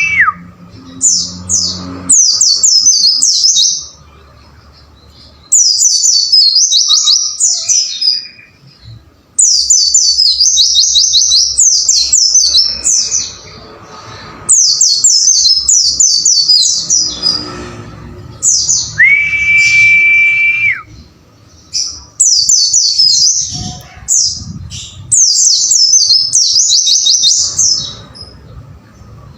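A pleci (white-eye) singing in quick bursts of high, rapid notes that slide down in pitch, about eight phrases with short gaps between them. A little past halfway, a steady pure whistled tone holds for about two seconds.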